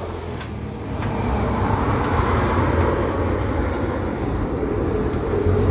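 Pieces of tuna frying in oil in a pan on a gas hob: a steady sizzling hiss that grows louder about a second in.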